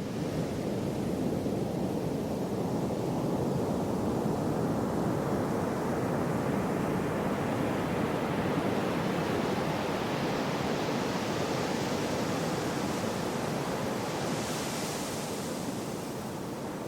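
Gentle sea surf: a steady wash of waves, with a wave swelling slowly and hissing up the shore about fourteen seconds in before it eases off.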